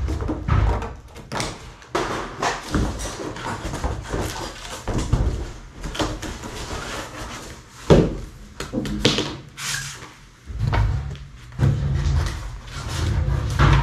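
Cardboard packaging and plastic bags being handled and cut, with rustling, scraping and irregular knocks; one sharp knock about eight seconds in.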